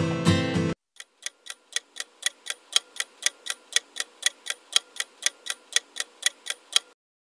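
Pop music cuts off just under a second in, then a quiz countdown timer's ticking-clock sound effect ticks about four times a second, alternating slightly stronger and weaker, and stops near the end.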